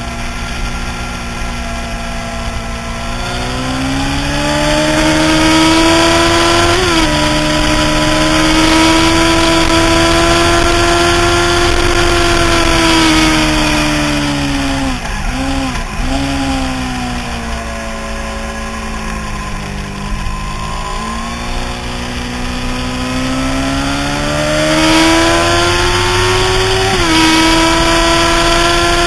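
Onboard sound of a Honda CBR600 F4i sportbike's inline-four engine on track with wind rush. The revs climb and then drop suddenly on upshifts, about seven seconds in and again near the end. In the middle they fall away with two quick dips while slowing, before climbing again.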